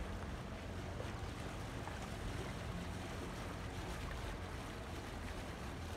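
Steady wind rumble on the microphone over the wash of small lake waves.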